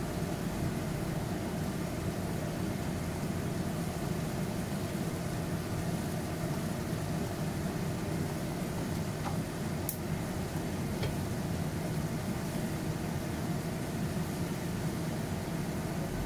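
Steady hiss and low hum of okra cooking undisturbed in a wok over a gas burner, with a few faint clicks near the middle.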